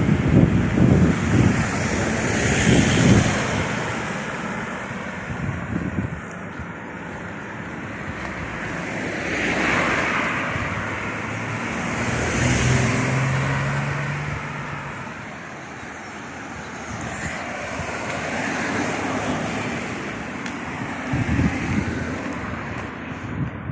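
Wind buffeting the microphone over a steady traffic-like rumble, swelling and fading in slow waves, with a brief low engine-like hum a little past the middle.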